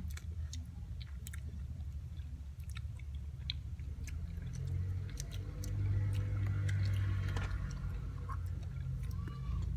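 A person chewing raw calamondins, peel and all, with short mouth clicks scattered throughout. A low hum under it swells from about halfway and eases off near the end.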